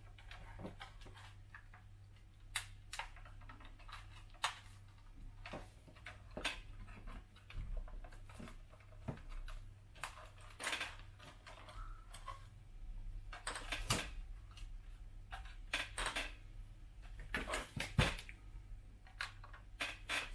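Irregular light clicks and knocks of hard plastic parts being handled as a plastic cargo bed is fitted onto a scale RC truck chassis, with a sharper knock near the end as the model is set down on the table.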